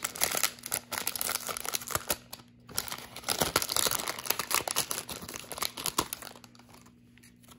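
Foil hockey-card pack wrapper crinkling and tearing as it is ripped open and the cards are slid out, a dense crackle that dies away about six seconds in.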